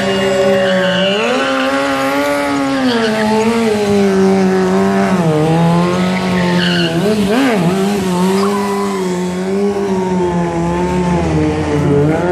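Stunt sportbike engine held at high revs, its pitch wavering and dipping briefly several times as the throttle is worked.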